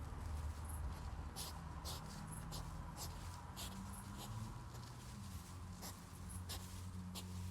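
Hedgehogs courting and mating in grass: scratchy rustling and many short clicks, over a low steady hum.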